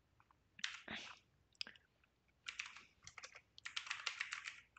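Typing on a computer keyboard: a few scattered keystrokes, then a quick run of keystrokes from about halfway through.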